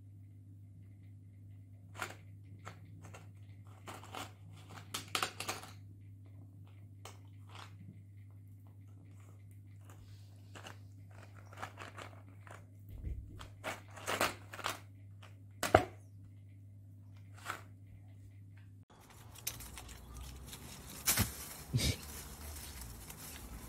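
A cat digging with its paws in a box of cardboard jigsaw puzzle pieces: irregular scraping and rattling of the pieces over a steady low hum, the sharpest clatter about sixteen seconds in. About nineteen seconds in the hum gives way to a different, hissier background with a couple of sharp clicks.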